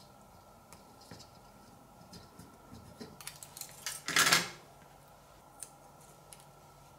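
Thin aluminium foil crinkling and rustling as fingers press and fold the pleated strip into a plastic holder, with scattered small clicks. The handling grows busier towards one loud crinkle about four seconds in that lasts about half a second.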